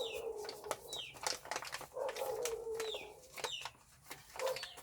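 Birds calling: short high chirps that slide downward, repeated about once a second, with a low drawn-out coo. Scattered sharp clicks and rustles of handling run through it.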